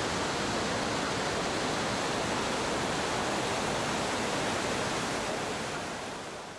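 Whitewater river rapids rushing steadily, fading out near the end.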